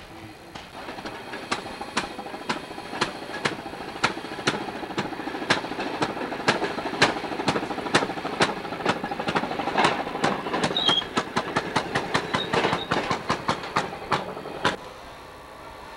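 Railroad motorcars (track speeders) running past on the rails, their small engines making a sharp, regular clacking that quickens towards the end and then stops suddenly.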